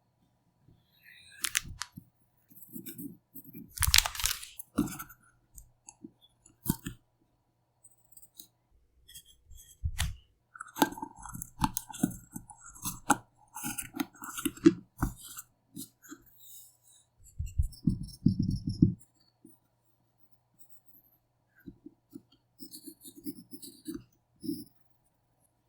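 Paper rustling and craft tools being handled on a desk, with scattered taps and clicks in irregular spurts.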